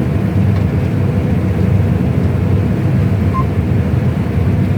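John Deere combine running under load while harvesting wheat, heard from inside the cab: a steady low drone of engine and threshing machinery.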